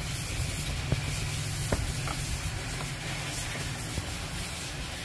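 A few light plastic clicks as a sun visor's mounting bracket is handled and set against the roof lining, over a steady hiss.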